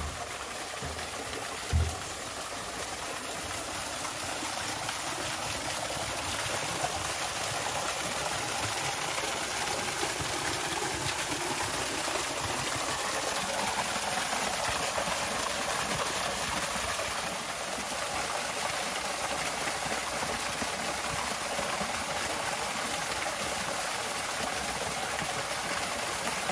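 Small garden waterfall splashing steadily into a rock pool, getting a little louder over the first few seconds. A thump about two seconds in.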